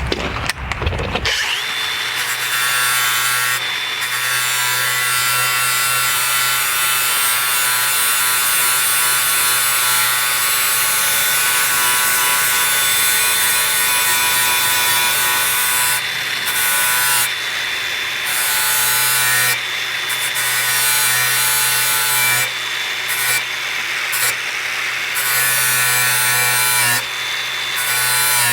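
DeWALT DCG413B 20 V cordless angle grinder with a flap disc, running at speed and grinding a steel mower blade to sharpen its edge. The motor comes up about a second and a half in and holds a steady whine under the grinding hiss. The hiss drops briefly several times in the second half as the disc comes off and goes back onto the blade.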